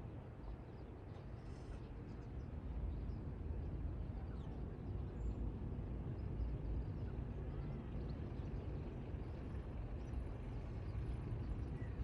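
Distant low rumble of a Boeing C-17 Globemaster III's four turbofan engines on approach, swelling slightly a few seconds in, with faint bird chirps above it.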